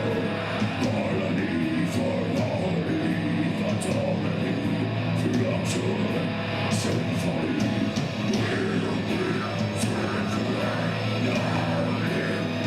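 Heavy rock music: guitars over a steady bass, with cymbal hits at regular intervals.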